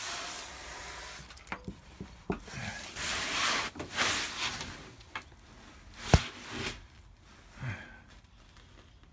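Rustling and scraping of someone moving through wooden boards and dry debris, with scattered small knocks and one sharp knock about six seconds in.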